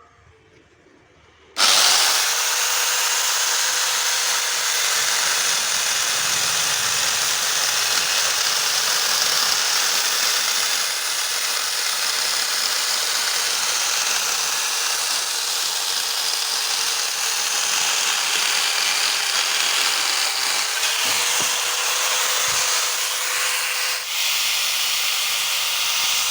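Angle grinder converted to a chainsaw with a bolt-on chain-and-bar kit, switched on about a second and a half in and running steadily at high speed while its chain cuts through a piece of wood.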